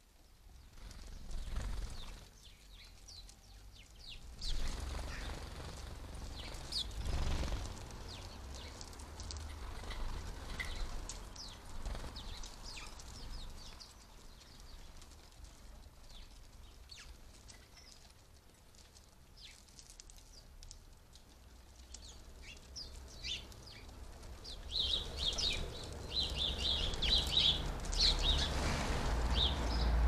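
House sparrows chirping, with short high chirps scattered through and a busier, louder run of chirping in the last few seconds. Wing flutters as the birds come and go, over a low rumble.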